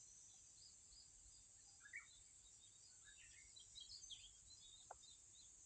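Faint outdoor ambience: scattered short bird chirps over a steady high hiss, with one short tick about five seconds in.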